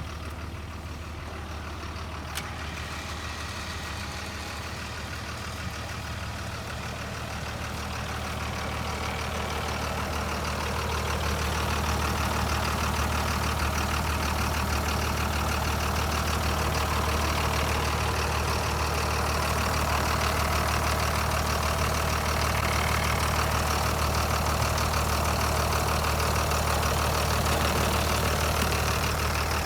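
A truck engine running steadily with a low hum. It gets louder about ten seconds in and then holds level.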